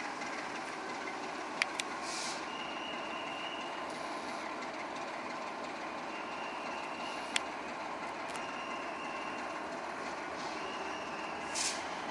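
GM diesel-electric locomotive standing at the platform with its engine running steadily, broken by a few short air hisses, intermittent high-pitched tones and a few sharp metallic clicks.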